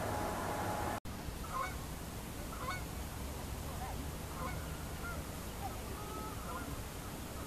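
Scattered short calls of distant waterbirds over a steady low background rumble, after a louder hiss that cuts off abruptly about a second in.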